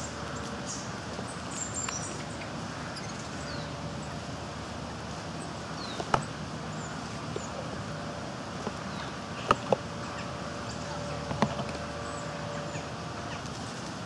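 Woodland ambience with a steady background hiss and small birds giving short, high chirps. Four sharp taps stand out: one about six seconds in, two in quick succession around nine and a half seconds, and one near eleven and a half seconds, from a grey squirrel feeding on the wooden board right by the microphone.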